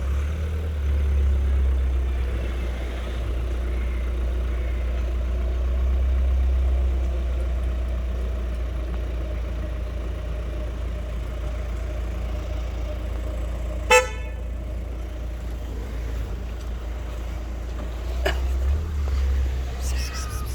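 Steady low rumble of street traffic, with one short car-horn toot about two-thirds of the way in.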